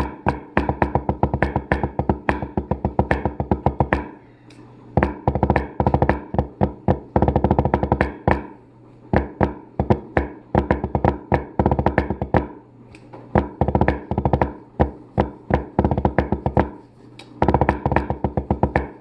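Wooden drumsticks playing fast rudimental patterns on a drum: dense runs of rapid strokes and rolls, thinning to sparser accented strokes about four seconds in and again about halfway through before the dense rolls return near the end.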